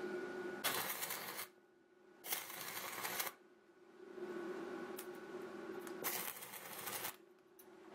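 Stick-welding arc crackling in three short runs of about a second each, with a steady low hum in the gaps between them.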